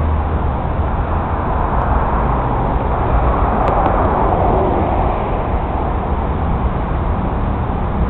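Steady rushing noise of wind and water, with a low rumble, swelling slightly a few seconds in.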